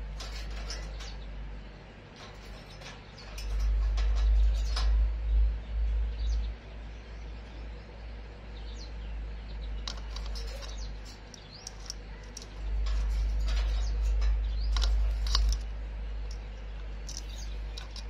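Plum-headed parakeet clambering on its wire cage: scattered clicks and scratches of beak and claws on the wires, with a few short high chirps. A deep low rumble swells up twice underneath.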